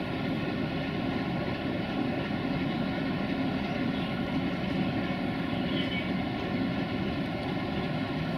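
CFR 060-DA (LDE2100) diesel-electric locomotive, with a Sulzer twelve-cylinder diesel engine, running steadily during shunting as it creeps forward. The drone is low and steady, with no horn blast.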